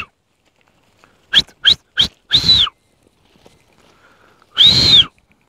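A shepherd's sharp whistles at a sheep flock: three quick short whistles a little over a second in, then a longer rising-and-falling whistle, and another long one near the end, each with a breathy blast.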